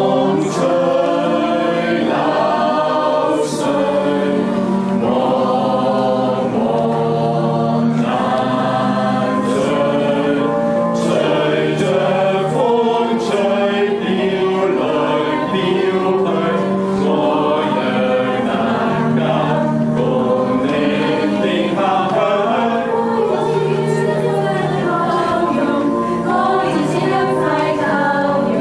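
Mixed group of men and women singing a Cantonese song together, a steady chorus.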